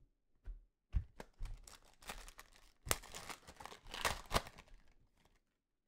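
A foil trading-card pack being torn open by hand: a run of irregular crinkles, rips and crackles of the wrapper lasting about four seconds.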